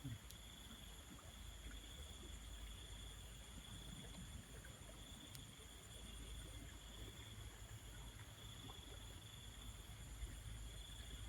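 Faint field ambience: a steady high insect drone over a low rumble, with no distinct events.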